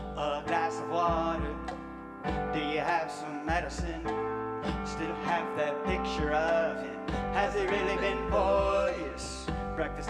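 Live band music on keyboards and synthesizers: held chords over a bass line, with a melody that bends in pitch on top.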